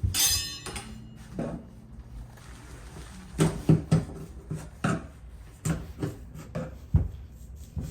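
A short high squeak at the start, then a run of irregular knocks and clunks, like hard objects being handled and set down.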